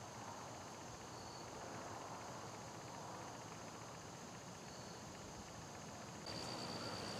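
Faint outdoor ambience of insects: a steady high drone with a few short high chirps. About six seconds in, a louder steady high insect trill takes over.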